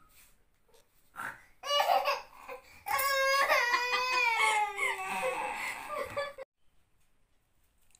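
A toddler's high-pitched voice: a short outburst, then one long call that slowly falls in pitch, cut off suddenly about six and a half seconds in.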